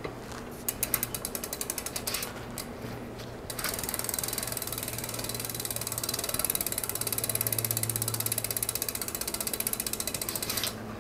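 Freehub of a Mercury S5 carbon disc wheel clicking as the wheel spins freely. First comes a run of separate ticks that slows over a few seconds, then from about three and a half seconds in, a louder, fast, continuous ratcheting buzz as the wheel turns faster.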